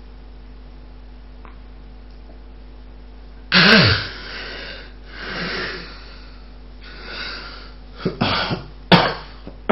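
A sleeper with obstructive sleep apnea: for about three and a half seconds no breathing is heard, then a sudden loud gasping snore ends the breathing stop, followed by noisy breaths and a few sharp snorts near the end.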